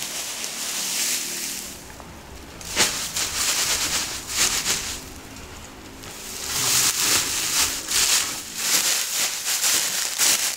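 Dry straw rustling and crackling as it is pulled from a bale, tossed and pressed down by hand, in three swells of a few seconds each with quieter gaps between.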